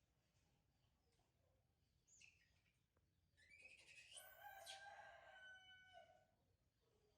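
Rooster crowing, faint: a short rising call about two seconds in, then one long crow of about three seconds through the middle.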